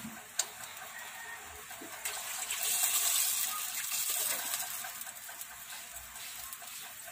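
Water poured in a thin stream into a stainless steel pot of chicken and broth, splashing into the liquid; the pour swells about two seconds in and eases off towards the end. A short sharp click just after the start.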